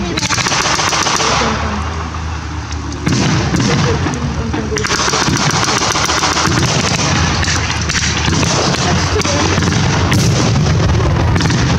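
Battle-reenactment pyrotechnics and blank gunfire: a steady crackle of shots and bangs over dense noise, louder from about three seconds in. Near the end, a pyrotechnic ground charge goes off with a sharp blast.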